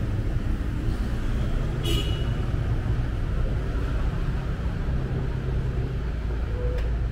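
Busy street traffic of motorbikes and cars, engines running in a steady low rumble, with one short sharp high-pitched sound about two seconds in.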